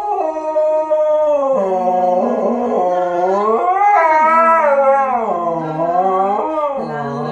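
Dog howling, one long unbroken howl whose pitch wavers, dropping, rising and falling again several times.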